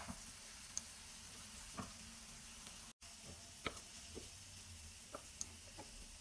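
Chopped onions frying gently in oil in a pan, already golden: a faint sizzle with a few light taps and scrapes of a wooden spoon stirring against the pan.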